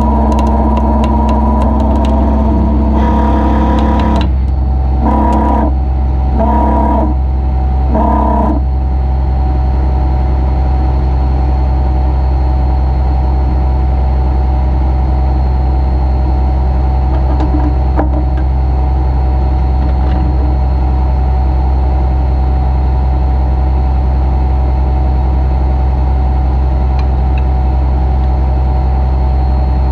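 Heavy wrecker's engine running steadily with the hydraulics engaged. In the first eight seconds its boom and winch controls are worked in four short bursts, each lifting the engine's sound. A steady drone with a thin whine follows.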